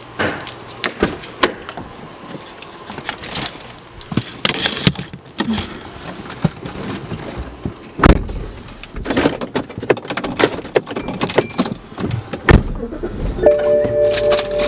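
Keys jangling among scattered clicks and knocks of things being handled, with two heavier thumps, one about eight seconds in and one near the end. About a second before the end, a steady two-note tone comes in.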